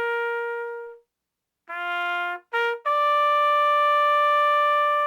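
Solo trumpet playing slow, held notes. A long note fades out about a second in. After a short silence comes a rising three-note figure, low, then short, then a long high note that is held.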